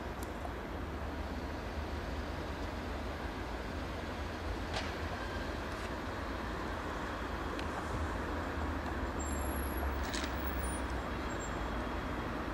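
Steady low engine rumble with a few faint clicks.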